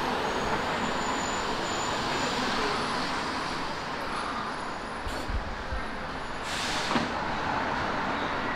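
Steady city street traffic noise, with a city bus's air brakes giving a short hiss of air about six and a half seconds in.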